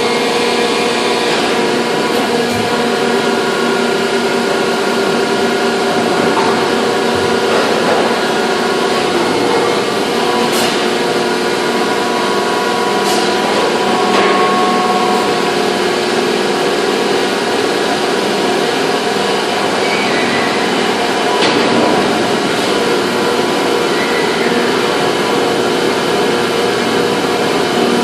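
Factory machinery running with a steady, many-toned hum, with a few sharp metallic knocks, about ten and thirteen seconds in.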